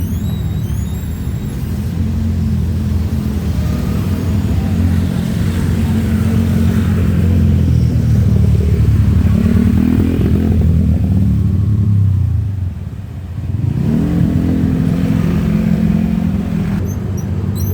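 Road traffic: motor vehicle engines running loudly and passing close by. The sound briefly drops about twelve seconds in, then another engine comes up rising in pitch.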